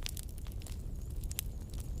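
Campfire burning wood and crackling, with irregular sharp pops and snaps over a low steady rumble.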